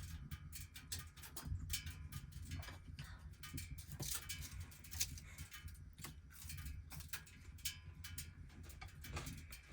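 Irregular small clicks and taps, several a second, over a steady low rumble.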